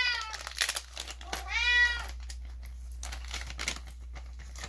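A domestic cat meowing twice, about a second and a half apart, each call rising and then falling in pitch. Faint crinkling and small clicks run between and after the calls.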